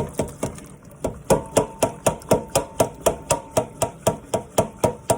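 Rapid, evenly spaced metallic clicks or taps, about four a second, each with a short ring. They come sparser at first and grow stronger from about a second in.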